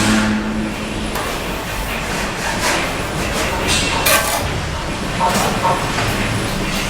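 Bricklaying work sounds: a handful of sharp scrapes and taps, as of a trowel on mortar and cement brick, over a steady noisy background.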